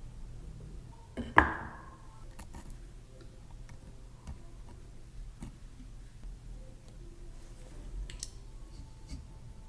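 Handling of tools and small parts during hand woodworking: a sharp knock about a second and a half in that rings briefly, then scattered small clicks and taps over a steady low hum.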